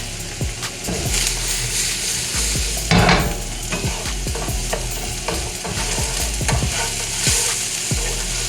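Onions sizzling and frying in hot olive oil in a pan, stirred with a utensil that scrapes and clicks against the pan, with a louder scrape about three seconds in.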